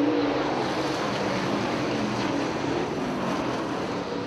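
Dirt super late model race cars' V8 engines running at speed around the track, heard as a steady rushing haze with a faint engine drone that slowly grows quieter.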